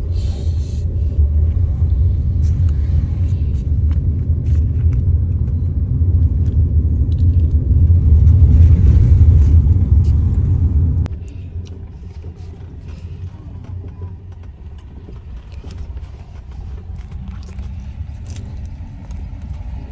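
Low rumble of a car in motion, heard from inside the cabin, that drops abruptly to a much quieter rumble about eleven seconds in, with scattered light clicks after.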